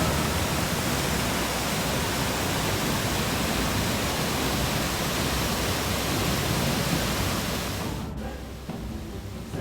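Steady rushing of a waterfall, which drops away suddenly about eight seconds in.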